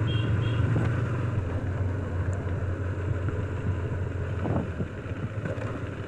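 Motorcycle engine running steadily while riding, with road and wind noise; the engine note drops slightly about a second and a half in.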